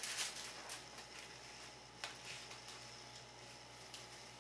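Faint small clicks and ticks of a BB gun and a few BBs being handled to load it, with one sharper click about two seconds in.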